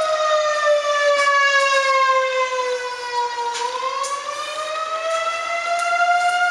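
Outdoor tornado warning siren wailing: one loud tone that slides slowly down in pitch for about three and a half seconds, then climbs back up.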